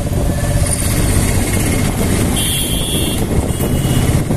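Auto-rickshaw's small engine running steadily under way, with a fast, close-up throb and road noise. A brief high-pitched sound cuts in about halfway through.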